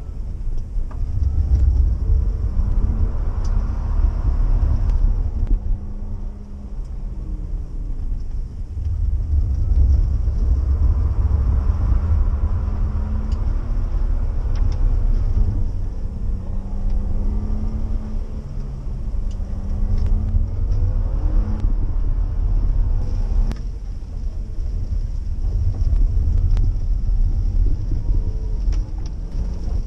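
BMW E46's engine heard from inside the cabin, pulling hard with its note climbing in pitch and then dropping off about four times through the gears, over a steady low road rumble.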